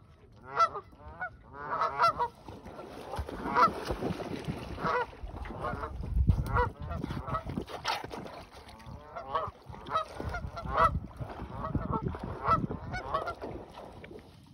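Canada geese honking over and over, in short runs of calls across the whole stretch.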